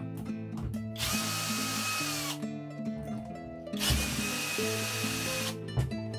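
DELIXI cordless drill-driver spinning out the screws of a Bafang BBSHD motor's nylon-gear cover. It makes two runs of about a second and a half each with a steady whine, and the pitch drops slightly as each run winds down.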